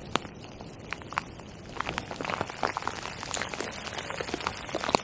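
Heavy rain, with many separate drops ticking close to the microphone and on the angler's waterproofs; the drops come much thicker from about two seconds in.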